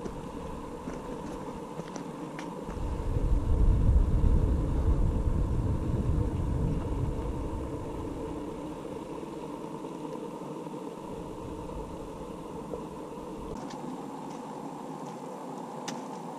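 Wind buffeting the camera's microphone: a deep gusting rumble builds about three seconds in and dies away over the next few seconds, over a steady outdoor hiss.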